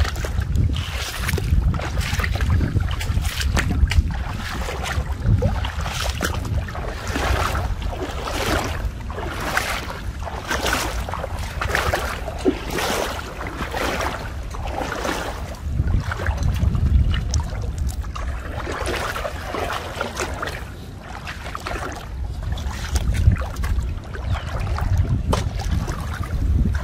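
Legs wading through knee-deep water, sloshing and splashing with each stride, about once a second. Wind rumbles on the microphone underneath.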